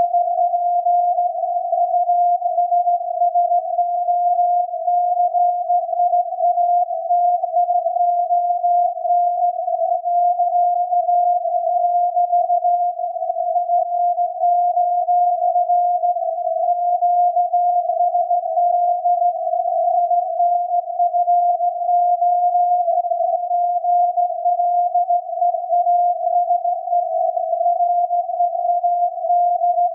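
The 17.2 kHz VLF signal of SAQ, the Alexanderson alternator transmitter at Grimeton, received on an SDR and heard as a continuous whistling tone near 700 Hz inside a narrow band of wavering hiss. The carrier runs unbroken with no Morse keying, its level fluttering slightly.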